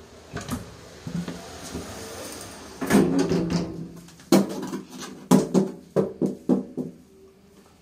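Old 1970s single-speed traction elevator at its doors: a short pitched sound about three seconds in, then a run of sharp metallic knocks and clicks over the next few seconds.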